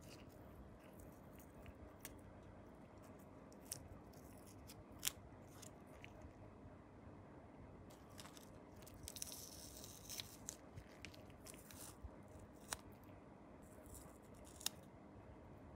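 Masking tape being peeled and crinkled off small painted plastic model parts, faintly, with a few sharp light ticks as the parts are handled and a brief crinkling rustle about nine seconds in.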